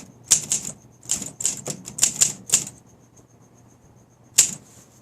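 1959 Olympia SM3 manual typewriter being typed on: a quick run of keystrokes, the typebars striking the platen, for the first couple of seconds, then a pause and one more sharp strike near the end.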